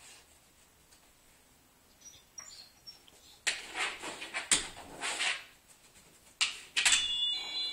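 A pitbull scuffing and knocking at a doorbell button: a few short noisy bursts and two sharp knocks in the second half, then an electronic doorbell chime starts ringing in steady high tones near the end.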